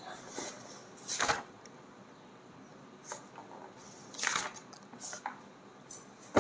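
Pages of a book being handled and turned: several short, faint paper rustles, the two clearest about a second in and past the middle.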